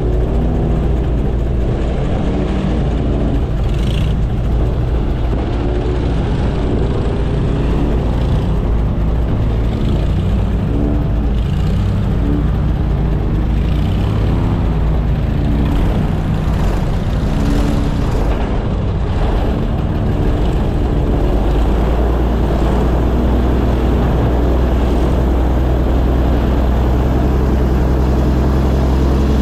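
Airboat engine and propeller running under way, a loud continuous drone. Its pitch rises and falls through the first part, then settles into a steadier, slightly louder note about two-thirds of the way in.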